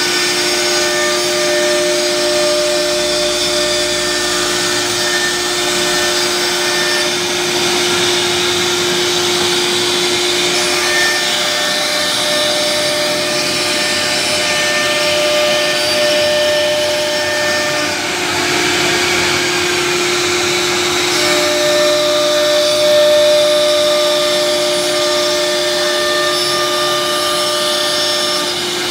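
CNC router cutting a board panel: the spindle runs with a steady whine over the rush of the cut and the dust-extraction suction, at an even level throughout.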